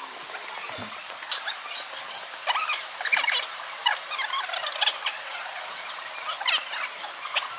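Birds chirping and calling in short, scattered chirps.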